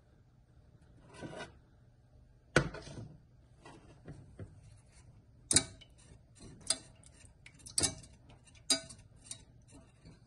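Wire whisk knocking and scraping against a stainless steel saucepan while whisking a thin liquid, a sharp metal clink about once a second. A heavier knock comes about two and a half seconds in.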